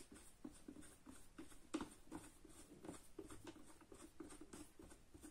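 Faint plastic clicks and scratching as the screw of a helmet phone mount is twisted tight by hand, with one sharper click a little under two seconds in.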